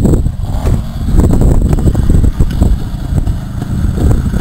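Vintage trials motorcycle engine running at low revs, the throttle opening and closing unevenly as the bike comes down a dirt slope.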